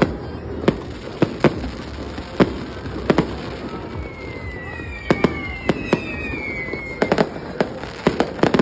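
Aerial fireworks going off: a rapid, irregular series of sharp bangs, with a few falling whistles about four to seven seconds in.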